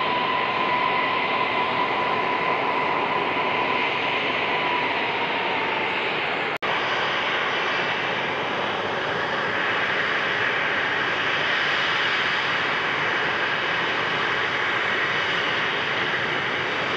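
Airliner jet engines running loud and steady, with a thin whine that fades out about five seconds in. The audio drops out for an instant about six and a half seconds in.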